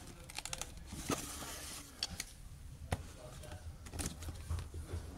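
A cardboard aircraft-model box being pulled from a shelf and handled: a few light knocks and scrapes scattered through, over a low steady hum.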